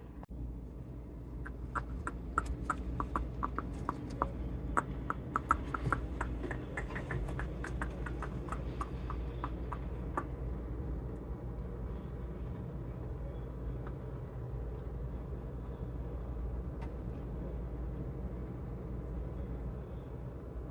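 A run of light clicks and taps from hands working at the bench, a few a second, stopping about ten seconds in, over a steady low hum that carries on.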